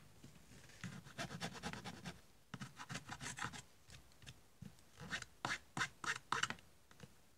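The small metal file of a True pocket multitool scraped back and forth in three short runs of quick filing strokes.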